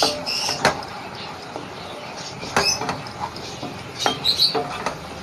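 Wooden spatula stirring a thick paste in a kadai, knocking and scraping against the pan. There are several sharp knocks, one right at the start, one just after, one in the middle and a quick cluster near the end.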